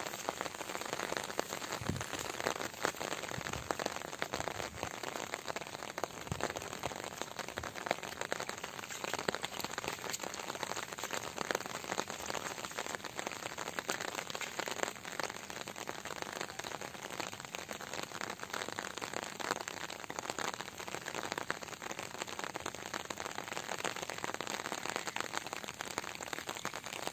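Steady rain falling on the water and grass of a flooded field, a dense, even patter of many small drops.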